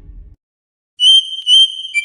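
Smartphone ringtone: a high-pitched electronic melody of short, bright, pulsing notes, starting about a second in. Before it, the tail of a low rumbling whoosh cuts off, followed by a brief silence.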